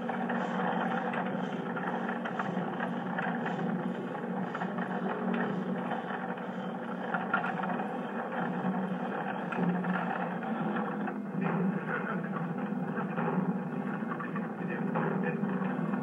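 A steady droning rumble, like machinery running, with a faint regular ticking about twice a second over it.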